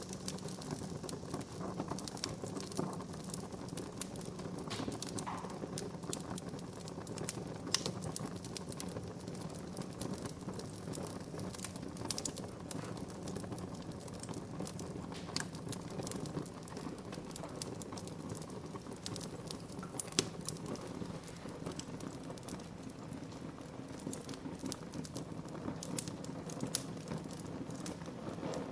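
Wood fire burning in a fireplace: a steady low rush of flames with many sharp, irregular crackles and pops from the burning wood.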